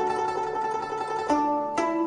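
Background music on a plucked string instrument, with notes ringing on and two sharp new plucks a little after the middle.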